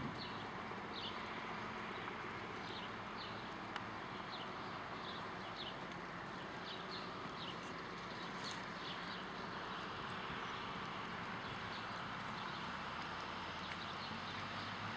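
Outdoor ambience: a steady rushing noise with short, high, falling chirps repeated about once or twice a second, thinning out after the first half, typical of a small bird calling.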